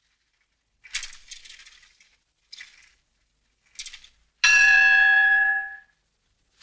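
Brass temple bells ringing in three separate short strikes, each fading fast, followed by one loud steady high ringing note held for about a second and a half that then stops.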